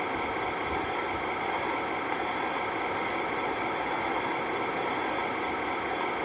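Steady background hiss with a faint, even hum that does not change.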